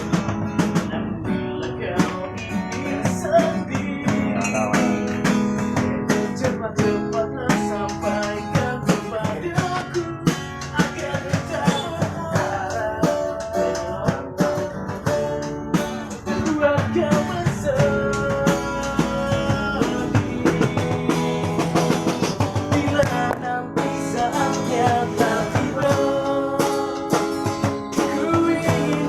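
Street buskers performing a song: a guitar played with many quick strokes, and a singing voice.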